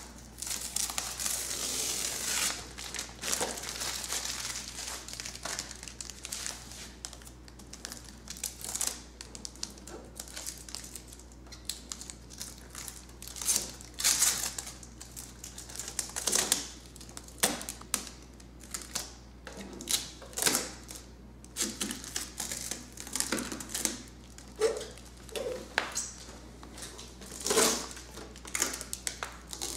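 Plastic packaging crinkling and rustling as it is handled and pulled off a new desktop computer, in irregular crackly bursts, with several louder crackles in the second half.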